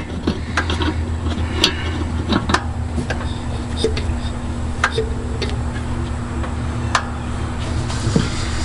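Chevrolet C60 truck engine idling steadily on its freshly rebuilt carburetor, with scattered sharp clicks over the idle.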